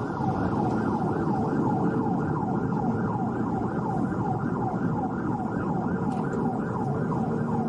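Police car siren in a fast repeating cycle, each note falling in pitch about three to four times a second, over steady engine and road noise from a car at highway speed.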